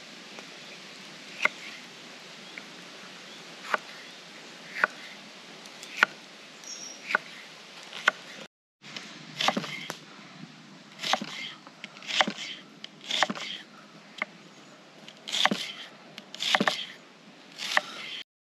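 Chef's knife cutting through bell pepper and then onion on a wooden chopping board. The blade knocks on the board about once a second, and after a brief break the strokes become fuller and longer.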